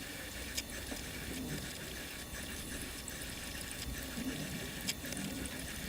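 Beko CFD6151W filter coffee machine brewing: a steady watery hiss of hot water being pushed through, with a few faint ticks.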